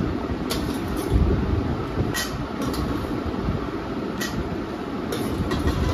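A steel spoon clinking a few times against a steel pan as fried semolina balls are dropped into milk, over steady background noise.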